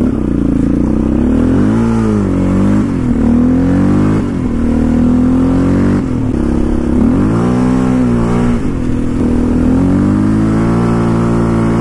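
Yamaha Raptor 700R quad's single-cylinder four-stroke engine accelerating under way, its pitch climbing and dropping back several times as it shifts up through the gears.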